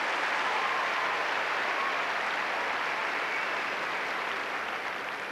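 Tennis crowd applauding the end of a game, the clapping slowly dying down near the end.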